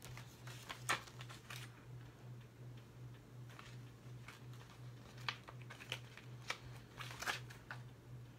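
Scattered faint clicks and rustles of a plastic Blu-ray case and its paper insert being handled, over a steady low hum.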